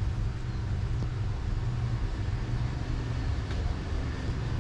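A steady low rumble with a few faint, light clicks.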